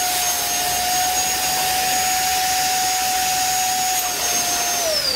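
Electric air blower running with a steady whine and hiss, then switched off near the end, its pitch falling as it winds down.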